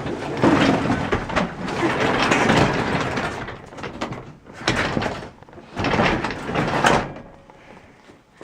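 Garage door rolling along its tracks: a long, noisy rolling run, then two shorter surges a few seconds later.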